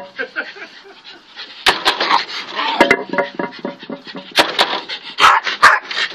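Small white terrier barking in repeated sharp, irregular barks, with panting between them, as it lunges up at the person.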